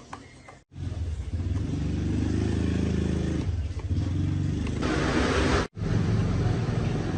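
Small lawn mower engine running steadily, starting abruptly about a second in. It swells louder and rougher around five seconds in, then cuts out for an instant and carries on. Before it starts there are a few faint light taps.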